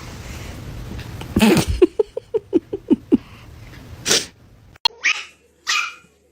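A pet's voice: a sudden loud burst, then a quick run of about six short cries falling in pitch, followed by a few more short noisy bursts.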